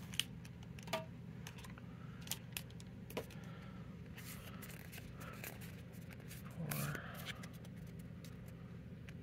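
A stack of Pokémon trading cards being handled and flipped through by hand: irregular soft clicks and snaps of card edges over a steady low hum.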